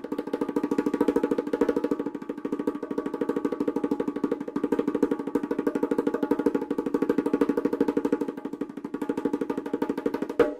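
A percussion roll: one pitched drum or block struck in rapid, even strokes for about ten seconds, its loudness swelling and easing a little, then stopping abruptly near the end.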